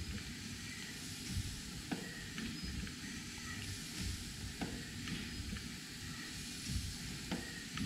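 Fitchburg piston-valve horizontal mill steam engine running quietly: a steady soft hiss with a light knock recurring about every two and a half seconds, which sounds like a bearing that needs tightening up.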